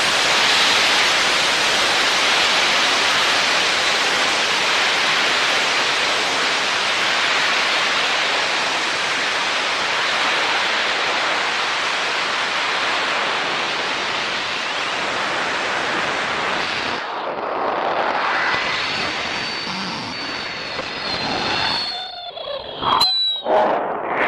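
Steady rushing hiss recorded by the Qu8K amateur rocket's onboard camera at high altitude, easing slightly over time. About seventeen seconds in the highest hiss drops away and faint high whistling tones come in. Near the end there are a few sharp clicks.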